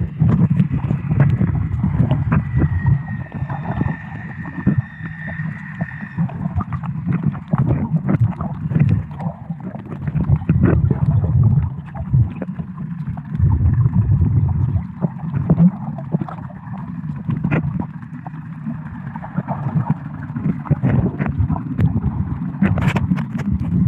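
Muffled underwater sound from a submerged camera: water gurgling and sloshing over the microphone, with an uneven low rumble and scattered clicks.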